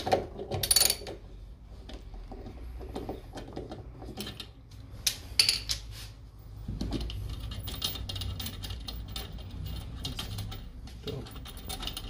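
Socket ratchet wrench clicking as it undoes the bolts holding the stator of an LG front-loader's direct-drive washer motor, with light metal clinks of the tool and bolts against the stator.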